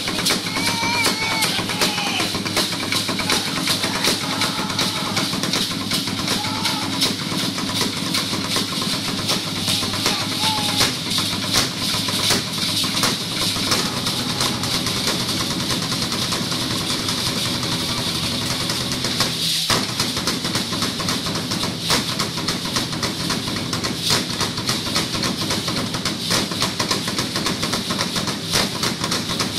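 Drum-led music for a Maya warrior dance, with dense, steady percussion. A few voices call out over it in the first few seconds.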